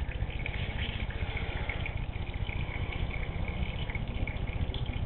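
Warm engine oil pouring in a steady stream from the motorcycle crankcase drain hole into a drain pan.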